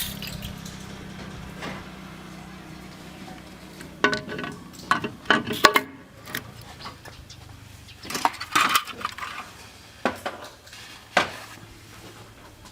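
Irregular clinks and knocks of hard objects being handled, bunched in two clusters, some with a short ring.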